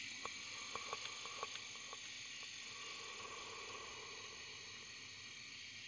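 Steady chorus of night insects such as crickets, trilling in several high-pitched bands, with a handful of short clicks in the first second and a half.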